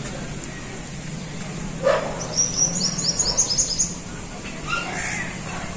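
A bird chirping in a quick run of high repeated notes, with short dog yips about two seconds in and again near the end. A low steady hum runs underneath.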